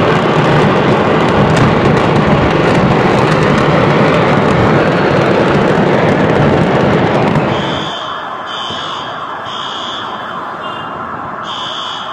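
Mass detonation of stored fireworks: a loud, continuous crackling rumble of many fireworks exploding at once. About seven and a half seconds in it drops away to a fainter rumble, and an electronic alarm beeps over it about once a second.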